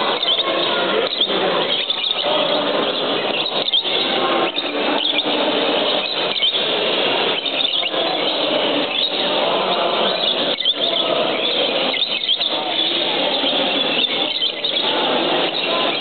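Many exhibition budgerigars chattering and chirping at once: a dense, continuous din of overlapping squeaky calls with no pauses.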